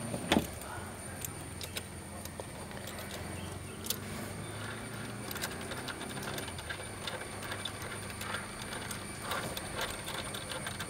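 Small ratchet wrench clicking faintly as a 10 mm bolt is run in, with scattered light metallic clicks and taps from the tool.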